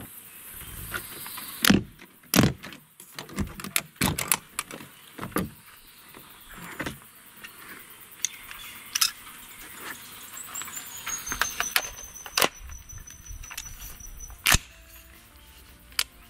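Hard rifle case latches snapping open with sharp clicks, then knocks and clicks as the lid is lifted and an AR-15 rifle with its scope is taken out of the foam and handled, about ten distinct clicks in all.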